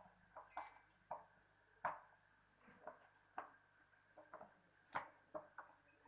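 Faint, irregular light clicks and taps, about a dozen short knocks, as of small hard objects being handled, over a low steady background hum.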